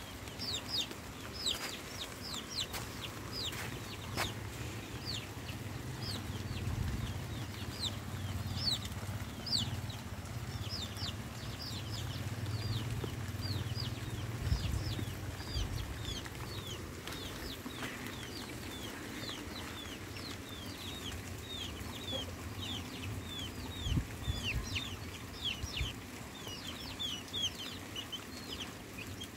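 Birds chirping: a continuous stream of short, high, falling chirps, several a second, growing denser in the second half.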